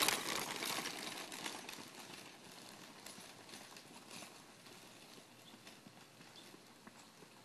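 Rhythmic crunching and clattering of footfalls and the small wheels of a wheeled speed-training cart on a gravelly dirt trail. It is loudest at the start and fades steadily as the runner moves off up the slope.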